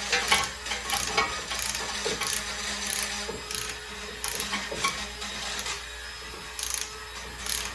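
Hand wire brush scrubbing rust off a brake caliper bracket: repeated short, irregular scraping strokes.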